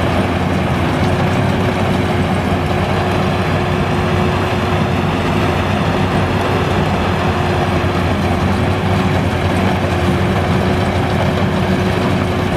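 Combine harvester's diesel engine running steadily while harvesting rice, a low rumble with a steady humming tone over it.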